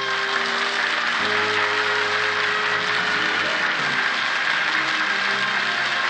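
Studio audience breaking into steady applause over the orchestra's closing music, with held orchestral notes sounding underneath.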